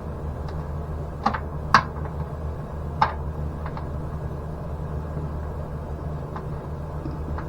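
A handful of scattered sharp clicks and light taps of metal mounting hardware and hand tools being handled, over a steady low hum.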